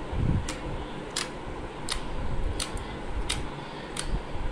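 Water slime being worked by hand, giving short sticky clicks and pops, roughly one every 0.7 seconds.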